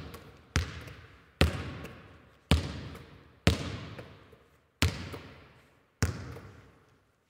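A basketball bounced slowly on a hard floor, about six bounces roughly a second apart, each ringing out in a long echo.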